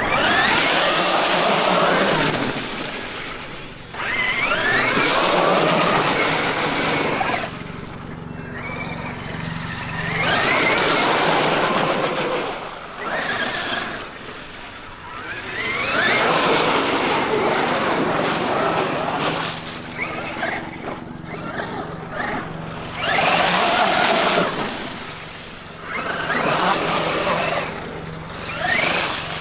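Traxxas X-Maxx electric RC monster truck driving in repeated bursts a few seconds apart, its brushless motor whining up in pitch as it accelerates, with noise from the tyres and drivetrain, dropping back between runs.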